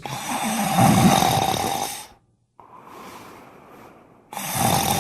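A person snoring: two loud snores, each about two seconds long, with a short pause and a quieter breath between them; the second starts near the end.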